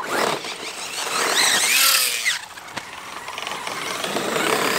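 Large electric RC monster trucks running on a dirt track, their motors whining up and down in pitch as they speed up and slow down. The sound is loudest about two seconds in, drops briefly, then builds again near the end.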